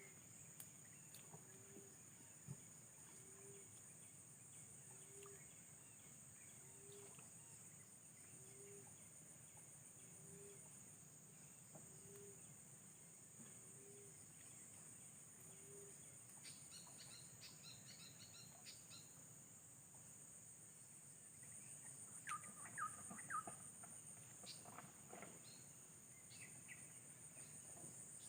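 Faint outdoor ambience: a steady, high-pitched insect drone of crickets or cicadas, with a short low call repeated about every second and a half through the first half, and a few brief bird chirps in the second half.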